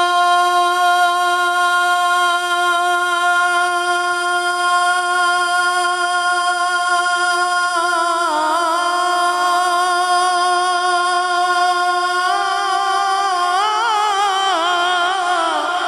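A man singing a naat unaccompanied into a microphone: one long, steady held note, then from about eight seconds in the pitch begins to waver and turn in ornamented runs.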